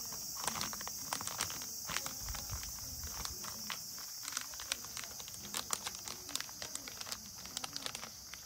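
A cat eating from a ceramic bowl: irregular small wet clicks of licking and chewing, a few a second and thicker in the second half, over a steady high-pitched hiss.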